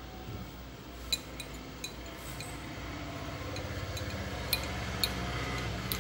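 A glass bottle being handled while glue is dabbed on and jute twine is pressed around its neck: a handful of light, sharp clinks and ticks against the glass, spread through, over a faint steady hum.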